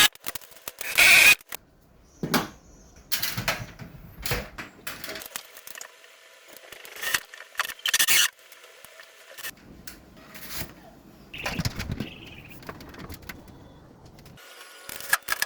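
Irregular knocks, clicks, scrapes and short rattles of tools and parts being handled, the loudest clatter about a second in.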